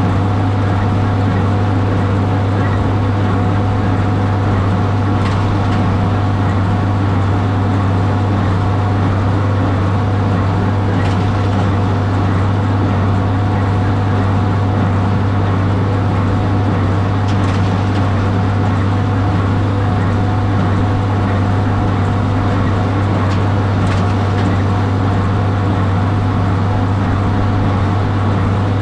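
Tractor engine running steadily under load with a strong low drone, with faint clicks about every six seconds.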